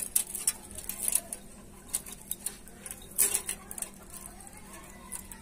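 Wood fire crackling in a mud cooking stove: irregular sharp pops and snaps, with a louder snap about three seconds in.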